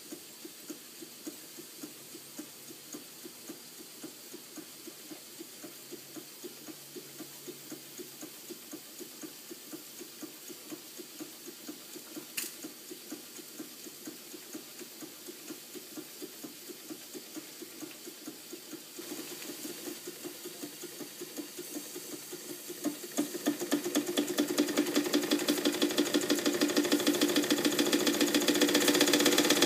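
Weeden No. 34 toy steam engine running, its cylinder and crank giving off a steady, rapid chuffing beat as the flywheel turns. The beat grows louder and quicker in the last several seconds.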